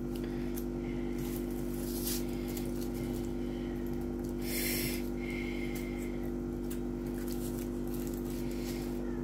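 Steady electrical hum throughout, with faint scrapes of a fork working through a foil-wrapped baked potato and a short crinkle of the foil about halfway through.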